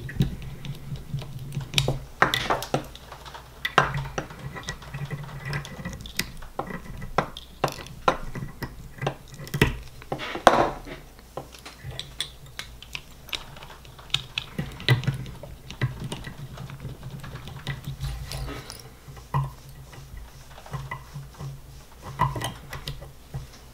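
Irregular light clicks and taps of small metal parts being handled at a fly-tying vise: a hook, a bead and wire worked by hand. A low steady hum runs underneath.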